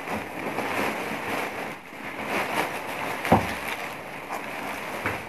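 Large woven plastic sack rustling and crinkling as it is tipped out, with plastic-wrapped parcels sliding and tumbling onto a table. A single thud a little past three seconds in.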